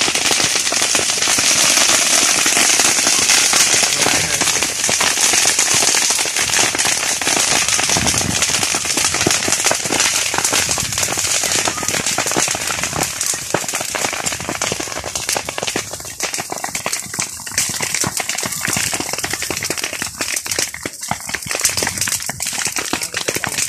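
Grass fire burning through tall green grass, crackling with dense, rapid, irregular pops and snaps over a steady hiss, a little quieter in the second half.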